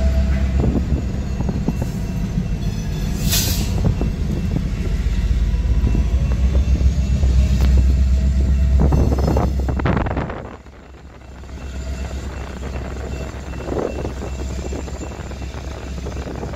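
Diesel locomotives rumbling slowly across a road crossing, heard from inside a car, with a few sharp clanks along the way. About ten seconds in the rumble drops off sharply as the engines move away, leaving a quieter, steady engine sound.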